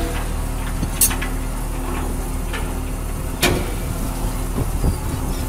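Fishing boat's engine and deck machinery running with a steady low drone while the purse seine net is hauled aboard, with two sharp knocks, one about a second in and another past the middle.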